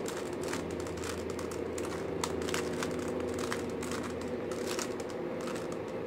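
Plastic 3x3 Rubik's Cube with its layers being turned quickly by hand: a run of irregular clicks and clacks as the moves that swap two yellow corners are made, over a steady low background hum.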